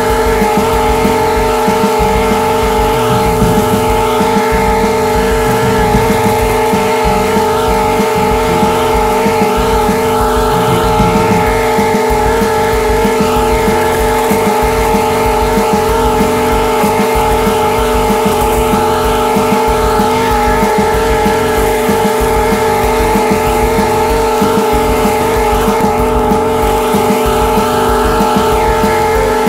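Commercial lawn mower's engine running steadily as the mower cuts grass, heard close up from a camera mounted just above the engine. It is a loud, even drone with no change in pitch.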